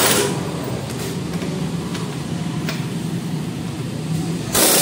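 Pneumatic impact wrench working the lug nuts on a car's front wheel: a loud burst that stops just after the start, and another that starts near the end. Between the bursts a steady low hum and a few faint clicks.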